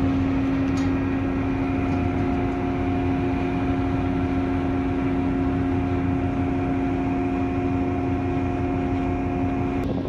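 Steady hum of a container ship's onboard machinery while under way: a constant low drone with several steady tones on top, the higher tones dropping away near the end.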